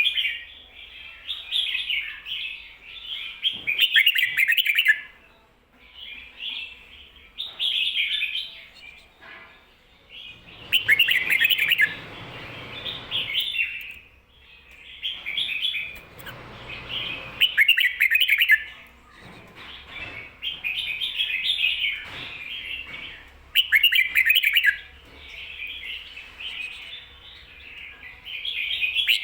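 Red-whiskered bulbul singing its short, warbled phrases over and over with brief pauses between, in the doubled 'ko-ta-ra' song pattern. Two spells of rustling noise sound under the song about a third of the way in and just past the middle.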